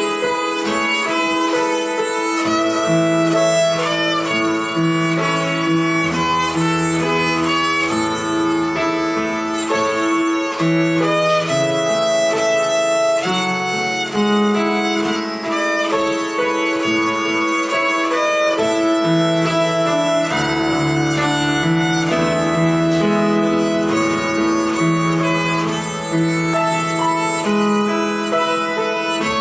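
Violin playing a simple beginner melody, one note at a time, over a lower accompaniment line.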